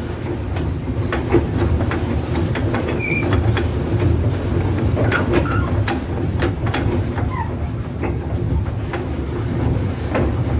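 Swan pedal boat being pedalled: a steady low rumble of its paddle drive churning water, with irregular clicks and knocks from the pedal mechanism.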